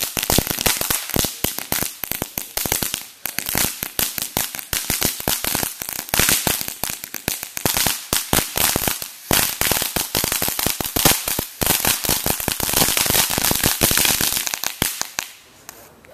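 Consumer ground firework crackling: a dense, rapid run of sharp pops that thins out and dies away about fifteen seconds in, as the firework burns out.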